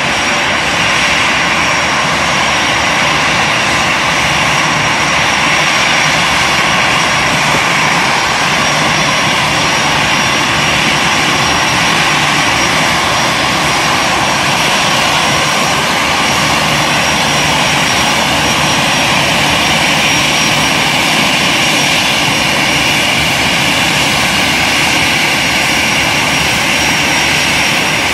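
Airbus A340's four jet engines running at taxi power as the airliner rolls slowly in: a loud, steady rush with a thin high whine over it.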